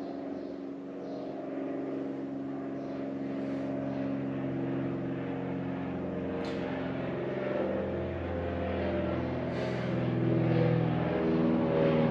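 Piston aircraft engine drone as an aircraft flies over, a steady hum of several tones that grows louder toward the end.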